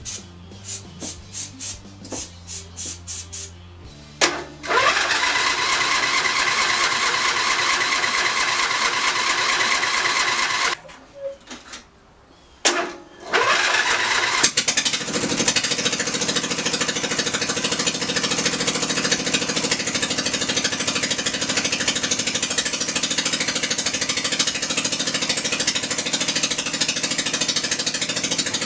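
John Deere lawn tractor engine cranking on starter fluid, catching about four seconds in and running loudly, dying a little before halfway, then restarted after a short pause and running steadily to the end.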